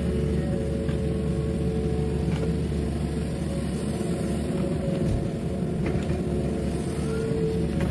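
Yanmar mini excavator's diesel engine running steadily while its hydraulic arm lifts a bucket of dirt over a dump truck and swings back, with a few faint clicks.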